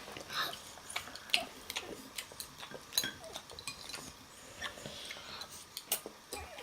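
Eating sounds of someone working through a bowl of tonkotsu ramen: chewing and mouth noises with many short, sharp clicks of utensils against the bowl.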